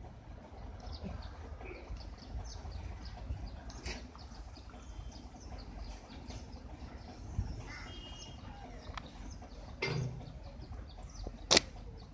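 Open-air ambience: a steady low rumble with scattered short, high bird chirps and a few thin whistles, a brief low sound about ten seconds in, and one sharp click near the end.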